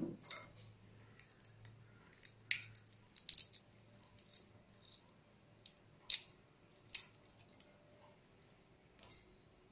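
Dry roasted cocoa bean shells cracking and crinkling between fingertips as they are peeled off by hand: scattered short crackles, the loudest two about six and seven seconds in.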